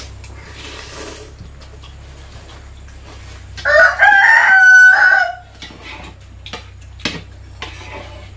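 A rooster crowing once, a loud call of about a second and a half in the middle, rising at the start, held, then falling away.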